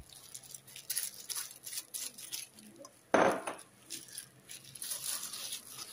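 Granulated sugar poured from a ceramic bowl onto flattened rice in a stainless steel mixing bowl, with light clinks of the bowls touching and soft rustles of a plastic glove. One louder swish about three seconds in.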